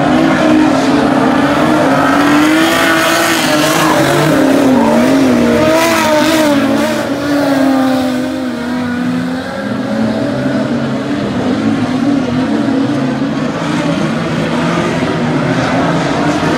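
Several dirt-track race car engines running hard, their pitch rising and falling as the cars accelerate and lift off.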